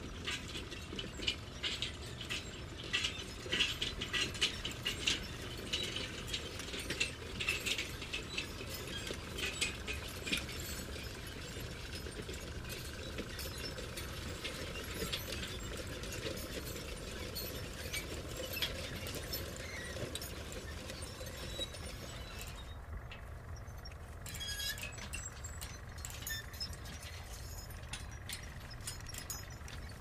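Construction-site ambience of metalwork: frequent metallic clinks, clatters and ratcheting over a steady low rumble. The clatter is busiest in the first third and thins out later.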